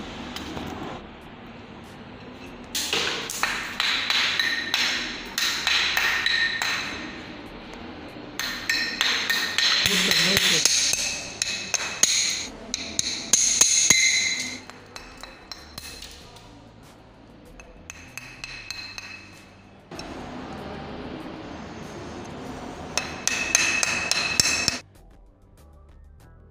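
Repeated sharp knocks and taps on a brass denture flask, with a metallic ring, in three spells of rapid strikes: the flask is being knocked open and the plaster investment freed from it to deflask a heat-cured acrylic denture.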